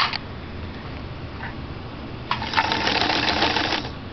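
A late-1950s or early-1960s New Home zigzag sewing machine, rewired with a new motor control, sewing a zigzag stitch. It starts a little over two seconds in, runs smoothly for about a second and a half with a steady whirring hum, then stops near the end. There is a sharp click at the very start.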